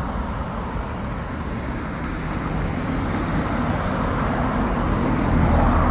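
Low, steady rumble of street traffic, growing a little louder toward the end.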